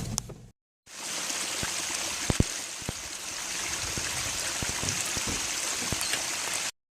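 Steady rushing of running water, like a small stream, with scattered clicks and ticks. It comes in about a second in after a brief break and cuts off suddenly near the end.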